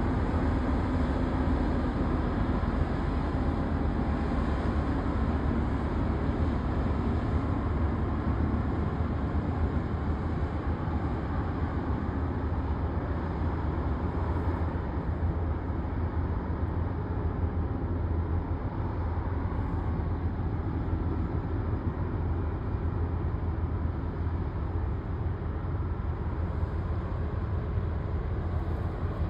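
Large cargo ship under way, a steady low engine rumble with no change in pitch.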